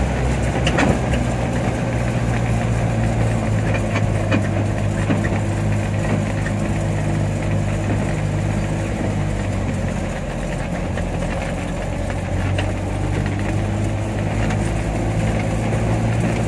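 A vehicle's engine running at a steady low hum, heard from inside the cab while driving slowly, with a few short knocks and rattles.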